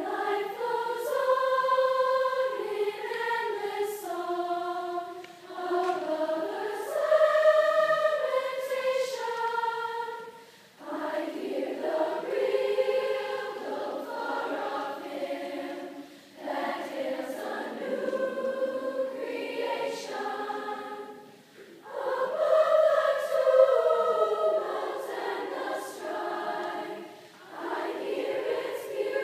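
Large girls' choir singing together, in phrases broken by short pauses.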